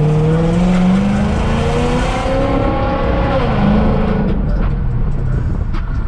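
Infiniti M45's 4.5-litre V8 accelerating hard, its note climbing steadily in pitch. About halfway through the pitch drops suddenly as the automatic shifts up, and the engine pulls on at lower revs.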